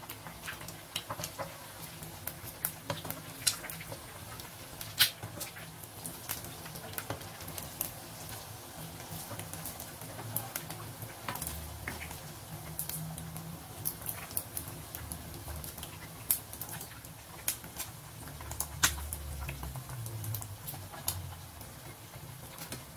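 Eggs deep-frying in hot oil: a steady sizzle with frequent sharp pops and crackles as the eggs crisp and brown.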